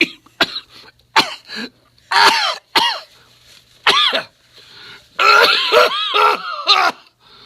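A man's harsh coughing and throat-clearing fit: a string of short, sharp coughs, then a longer run of hacking coughs about five seconds in.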